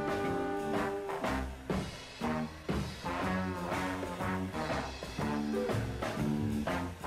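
Swing-style jazz music with brass over a steady beat, accompanying a dance routine.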